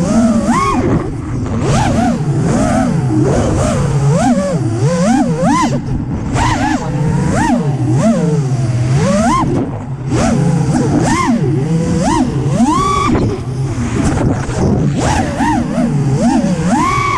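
FPV freestyle quadcopter's brushless motors whining, their pitch swooping up and down rapidly with the throttle.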